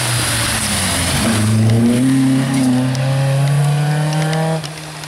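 Volvo 240 rally car passing at speed on a wet gravel road, its engine held at high revs. A hiss of water spray from the tyres runs through the first second and a half, the engine note shifts about a second in and then climbs slowly, and it drops away sharply near the end.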